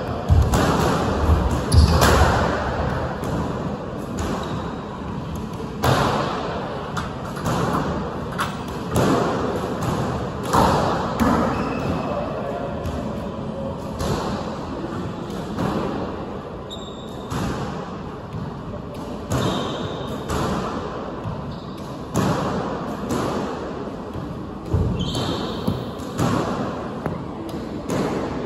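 Squash ball smacking off rackets and the court walls again and again at irregular intervals, each hit echoing in the enclosed court, with a few short squeaks from court shoes on the wooden floor.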